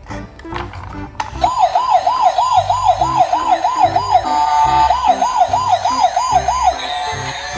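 Siren in a fast up-and-down wail, about three to four sweeps a second, starting about a second in, holding one steady tone briefly midway and stopping near the end. Music with a stepping bass line plays underneath.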